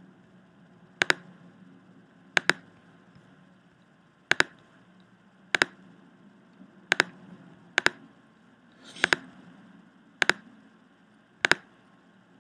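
Computer mouse button clicking about nine times, roughly once every second and a bit, each click a quick press-and-release pair, over a faint steady hum.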